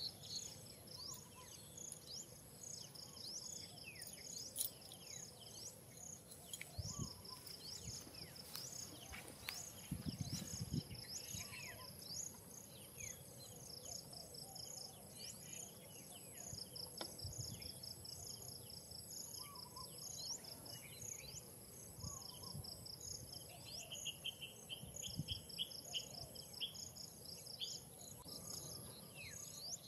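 Faint outdoor ambience of insects chirping in steady rapid pulses over a high continuous whine, with scattered short high chirps and a few soft low thumps.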